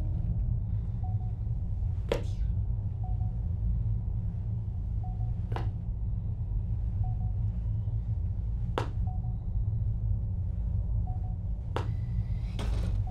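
Steady low hum of a spaceship cabin's ambience, with a faint short beep repeating about every two seconds and a sharp knock about every three seconds.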